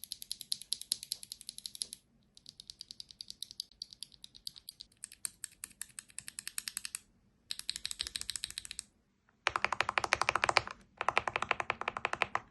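Fast typing on a mechanical keyboard with freshly lubed switches, dense streams of clicky-clacky keystrokes in several bursts with short pauses. From about nine and a half seconds in the typing becomes louder and deeper.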